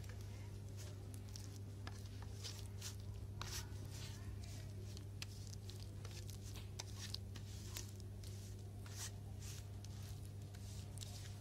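Fingers squishing and scraping a wet masala paste of chili powder, turmeric, ground spices and oil on a steel plate, in soft irregular squelches, over a steady low hum.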